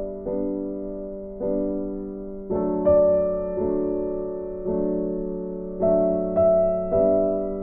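Background piano music: chords struck about once a second, each fading before the next.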